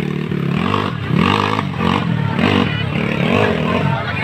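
Enduro dirt bike's engine revving hard under load on a steep dirt hill climb, its pitch rising and falling five or six times as the rider works the throttle.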